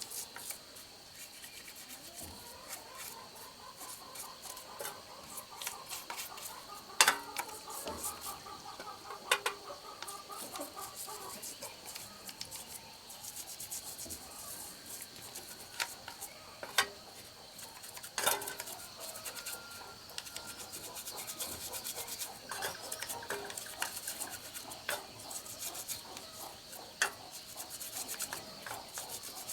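Hand work on chainsaw parts: rubbing and rasping, like sanding or filing, broken by sharp clicks and knocks of tools and metal parts. The loudest knocks come about 7 and 18 seconds in.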